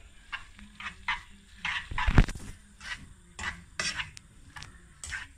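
Black plastic tongs turning cooked tagliolini in a frying pan, with irregular clicks and scrapes against the pan and a louder knock about two seconds in.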